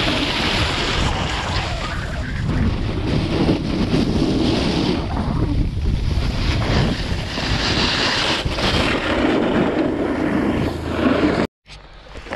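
Wind buffeting the camera microphone while riding fast down a groomed snow slope, with the board sliding over the snow: a loud, steady rushing noise. It stops suddenly near the end.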